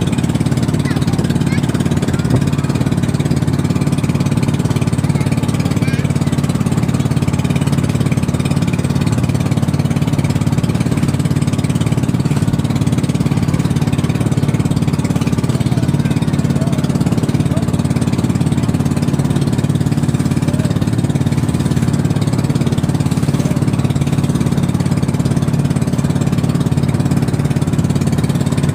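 Engine of a motorized outrigger boat (bangka) running at a steady, even pitch, heard from on board.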